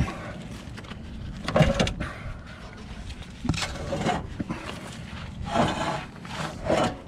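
A heavy lead-acid battery being worked loose and slid out of its metal battery tray by gloved hands: a series of irregular scrapes and knocks, the loudest about a second and a half in.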